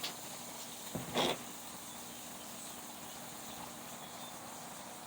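A couple of brief knocks about a second in, then a steady faint background hiss.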